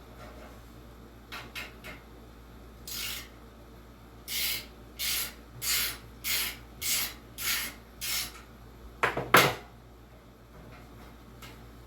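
Hand-tool work on the box fan's motor mounting bolts: a run of about seven short rasping strokes, evenly spaced a little over half a second apart, then two sharp metallic clanks near the end.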